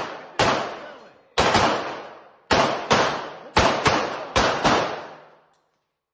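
Pistol shots on an indoor range, about eight of them at uneven intervals, each sharp crack trailing off in a long echo off the hard walls.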